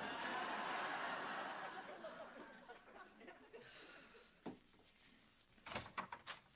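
Studio audience laughing, loudest at the start and dying away over about four seconds. Near the end comes a quick run of sharp clicks from a door knob and latch.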